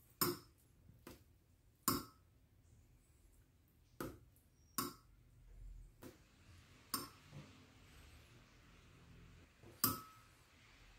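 Metal fish-bone tweezers clinking against a small glass bowl of water as pulled pin bones are knocked off them: a handful of short, sharp clinks a second or two apart, the last and loudest near the end.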